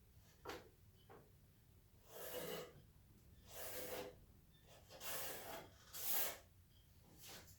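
Several short rubbing strokes, about six in the space of seven seconds, the longest and loudest in the middle.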